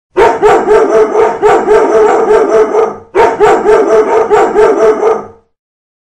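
Recorded dogs barking rapidly, about four barks a second, as a timer's time-up alarm. It comes in two bursts of about three seconds each, with a short break just after three seconds, and stops about five and a half seconds in.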